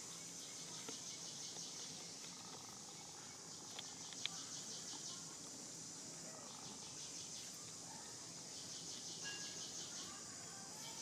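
Insects chirping in high-pitched, rapidly pulsing trills that come in bouts of a second or two, with one sharp click about four seconds in.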